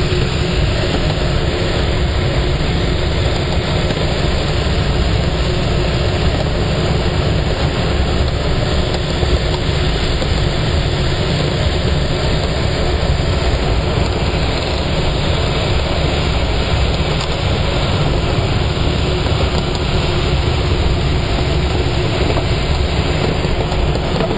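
Steady rush of airflow and wind noise in the cockpit of an ASK21 two-seat glider in flight, heaviest in the low end.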